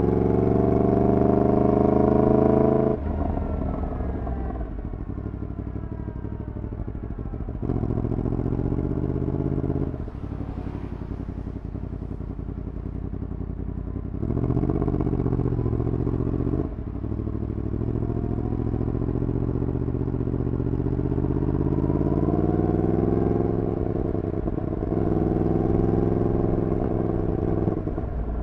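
Yamaha MT-10's crossplane inline-four through a full decat exhaust, ridden through traffic. It pulls hard with rising revs for the first three seconds, then the throttle closes and the revs fall away. Several shorter throttle openings and one long, slow climb in revs follow.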